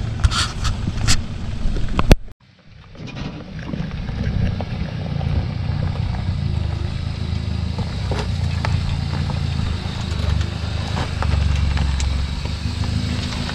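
Off-road 4x4's engine running at low revs as it crawls over a rocky lane, with sharp clicks of stones under the tyres. A loud crack about two seconds in is followed by a moment of near silence before the engine comes back.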